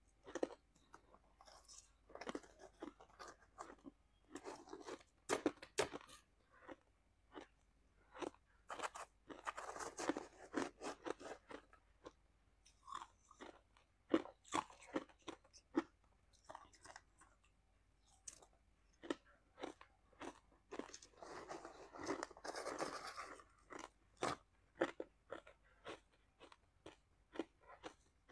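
Close-miked crunching and chewing of shaved ice topped with passion fruit: many sharp crunches in irregular runs, with longer, denser bouts of crunching about ten seconds in and again about twenty-two seconds in.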